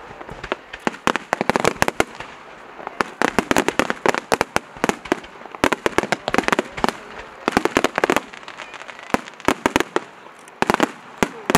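Aerial fireworks bursting in rapid volleys of sharp bangs and cracks. The volleys come in several dense clusters with brief lulls between them.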